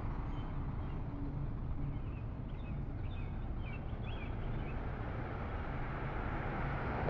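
Steady low outdoor rumble, growing slightly louder near the end, with a few faint bird chirps about two to four seconds in.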